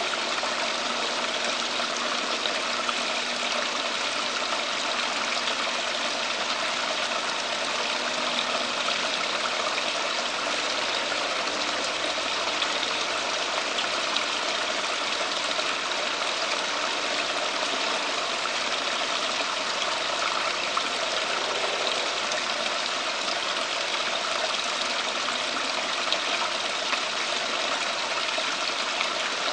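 Steady splashing and trickling of running water from the garden koi pond's rock water feature.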